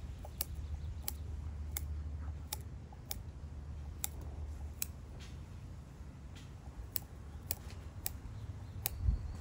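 Small scissors snipping off excess bucktail (deer hair) at the head of a jig: a series of short, sharp cuts, about one every two-thirds of a second.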